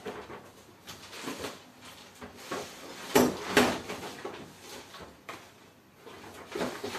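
Someone rummaging through household things: irregular knocks, clatters and rustling, loudest a little after three seconds in.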